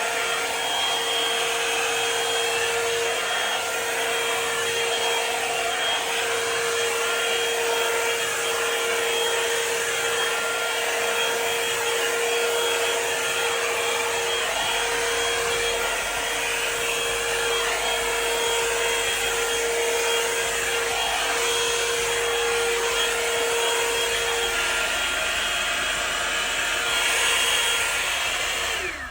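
Revlon One-Step hot-air brush dryer running on its highest setting: a steady rush of blown air with a high motor whine.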